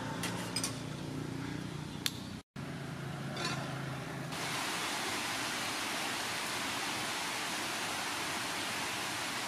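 Steady rain falling on garden plants: an even hiss that starts suddenly about four seconds in and holds steady. Before it come a few light clinks over a low hum.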